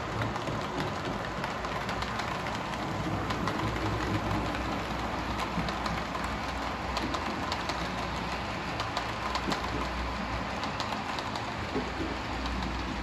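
HO scale model trains rolling on the layout's track: a steady rolling rumble of small metal wheels on rails, with many light clicks as the wheels cross rail joints and points.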